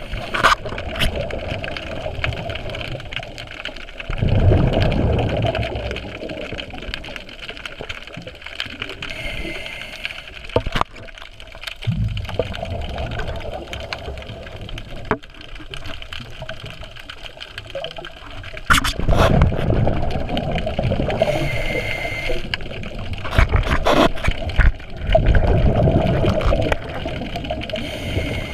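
Scuba breathing heard underwater: a hissing regulator inhale twice, and low rushing bubble bursts from the exhales, loudest near the end, with a few sharp knocks in between.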